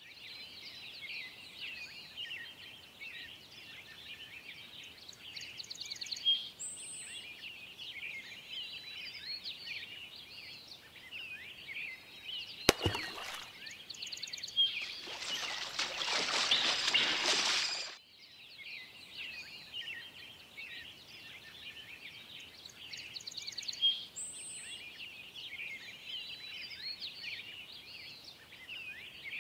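Outdoor birdsong ambience: many small birds chirping continuously. About thirteen seconds in there is a sharp click, and just after it a rushing noise swells for about four seconds, then cuts off suddenly.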